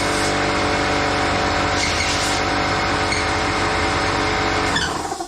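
Motor-driven air blower running steadily with a strong rush of air, blowing dirt off the mower's parts so it does not get into the new carburetor; it is switched off about five seconds in and winds down with a falling pitch.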